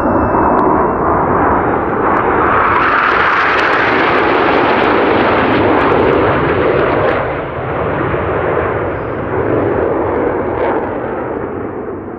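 Jet roar from a formation of six Northrop F-5E Tiger II fighters, each with twin J85 turbojets, passing in a display. The sound swells to its loudest and brightest in the middle, dips briefly, then fades away toward the end.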